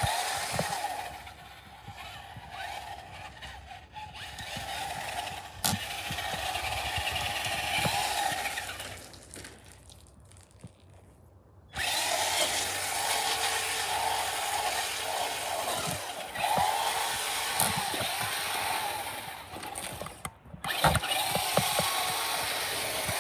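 RC car's motor whining as it revs up and down, its wheels spinning with almost no traction on ice. About a third of the way through, the motor falls away for a few seconds, then comes back abruptly.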